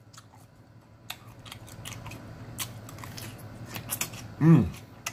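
Close-miked chewing of crunchy green salad (lettuce, cucumber and green pepper): a run of crisp, irregular crunches, with a short hummed "mmm" near the end.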